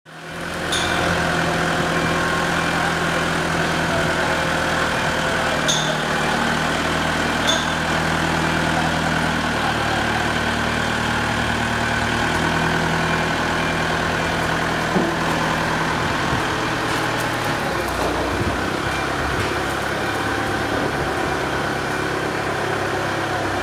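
Diesel engine of a 3-ton Detec forklift running steadily while it is used to pull a railway coach. The engine note shifts about ten seconds in and again near eighteen seconds.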